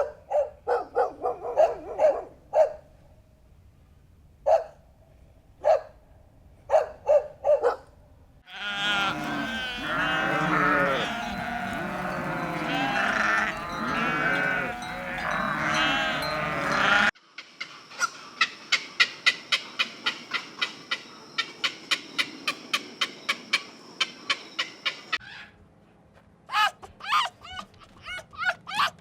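Livestock bleating: many animals calling over one another for several seconds in the middle, with short repeated calls before and after.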